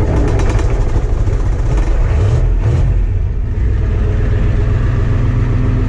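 Ford IDI diesel pickup engine running with a fast clatter, which eases about halfway through as it settles into a steady idle.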